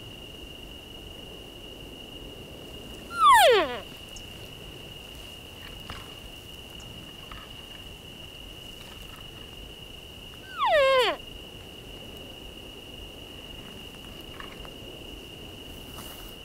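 Two short elk cow calls (mews), each a nasal whine falling steeply in pitch over about half a second, about seven seconds apart. A steady faint high-pitched tone and quiet outdoor background run underneath.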